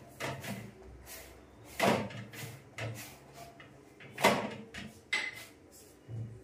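Kitchen clatter at the stove: about half a dozen separate knocks and bumps as containers and utensils are picked up and set down.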